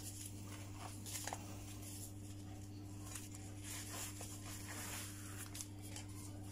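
Soft rustling and light crinkles of thin lumpia wrappers being peeled from the stack and laid on a plate by hands in plastic gloves, a few short rustles spread through, over a steady low hum.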